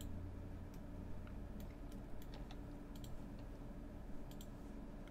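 Scattered short clicks and key taps from a computer mouse and keyboard, about a dozen spread unevenly, over a steady low hum.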